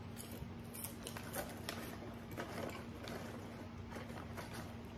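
Soft, irregular mouth sounds, lip smacks and clicks, from a man with pursed lips, over a steady low hum.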